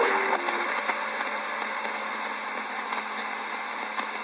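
CB radio receiver hissing with steady static between transmissions, heard through the radio's speaker. A short low tone sounds right at the start as the last transmission drops, and there is a faint click near the end.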